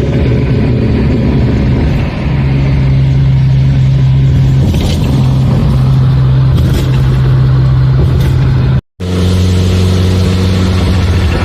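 Car engine running at a steady speed while driving, a steady drone. A little under nine seconds in the sound cuts out briefly and returns with the engine at a different, steady pitch.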